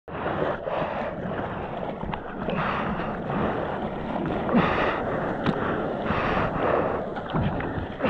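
Seawater rushing and splashing around a surfboard at water level, with irregular louder splashes. Wind buffets the microphone.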